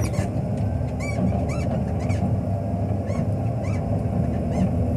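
Wheel loader's diesel engine running steadily, heard from inside the cab, with a string of short high squeaks repeating about every half second through the middle.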